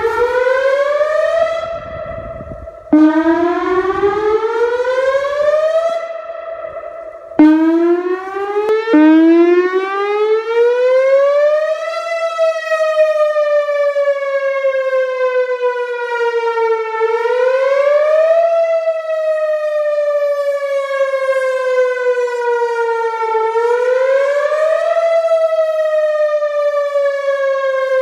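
Vortex R4 tornado siren sounding: three short rising whoops in the first nine seconds or so, each breaking off, then a steady wail that sinks slowly in pitch and climbs back quickly about every six and a half seconds.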